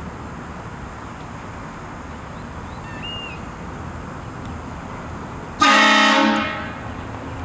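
Car-mounted HornBlasters Shocker 228VX air train horn giving one short, loud blast about three-quarters of the way in, over steady road and traffic noise.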